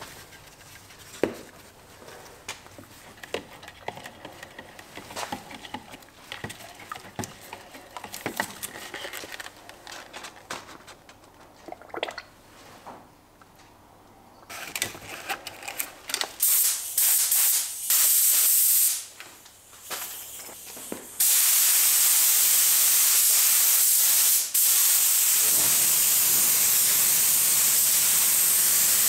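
Light clicks and knocks of cups and a stirring stick being handled, then a compressed-air gravity-feed spray gun hissing, first in short trigger bursts and from about two-thirds in as one continuous spray with brief breaks, spraying mould sealer.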